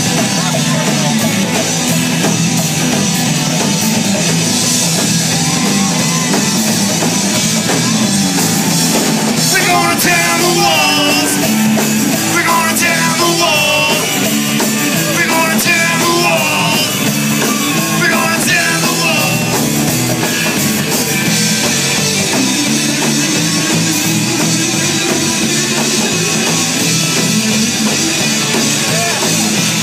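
Loud punk rock played by a band with a drum kit, in a stretch without words. A wavering melodic lead line comes in about ten seconds in and runs until about twenty seconds.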